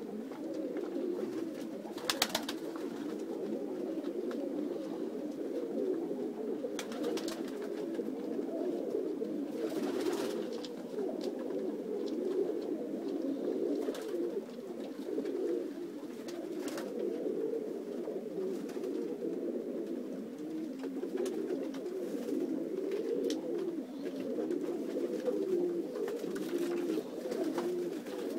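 A flock of domestic pigeons cooing together in a loft, many low coos overlapping into a continuous murmur, with a few sharp clicks mixed in.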